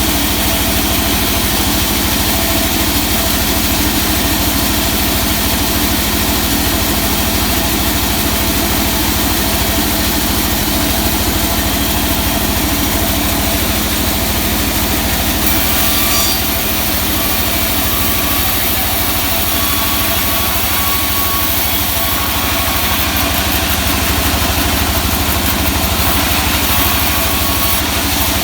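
Engine running steadily at a constant speed, typical of the motor that drives a sawmill's saw. About halfway through, a faint high whine comes and goes over it.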